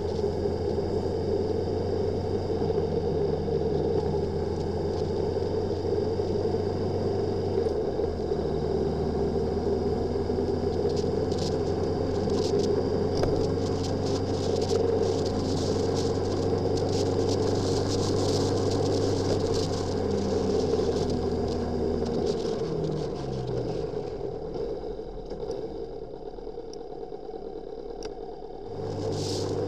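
Motorcycle engine running at a steady pace under steady wind and road noise. About three-quarters of the way through, the engine note falls away as the bike slows, stays low and quieter for several seconds, then picks up again near the end.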